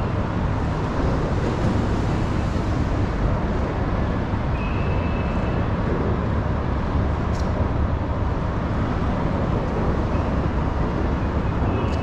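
Steady low rumble of road traffic crossing the bridge overhead.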